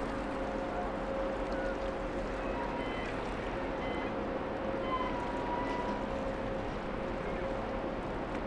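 Steady hum of the passing OOCL Spain, a 24,188 TEU container ship, over water washing and gurgling. A few faint, short, high tones come and go around the middle.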